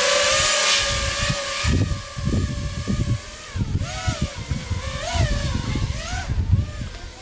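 FPV quadcopter's brushless motors (Emax Eco 2400KV) whining at a steady pitch, then warbling up and down with throttle changes from about halfway in, over wind buffeting on the onboard camera's microphone.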